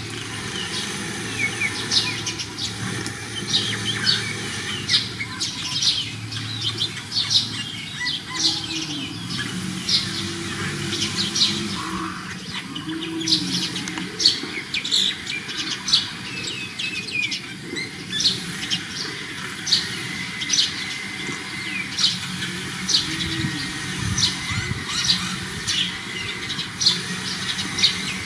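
Birds chirping: many short, sharp high chirps, several a second, with a few lower rising-and-falling calls among them.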